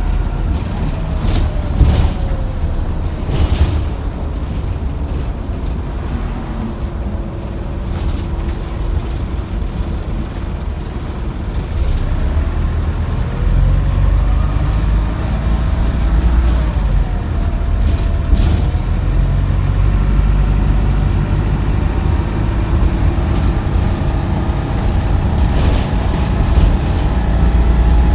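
Optare Solo single-deck bus heard from inside, its diesel engine and drivetrain running under way with a deep rumble and whines that rise and fall as it speeds up and slows, plus a few short sharp noises. The uploader calls it a horrible sound and says the bus sounds ill, having broken down the day before.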